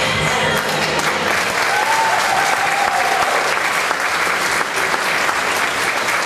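Audience clapping steadily, a dense, continuous spatter of applause for the unicycle group's routine.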